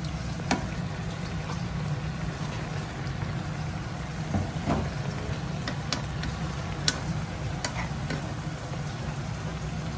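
A pan of crayfish and clams in sauce cooking on a gas stove: a steady low rumble with bubbling and sizzling over it, and a few sharp clinks of a metal spoon against the pan.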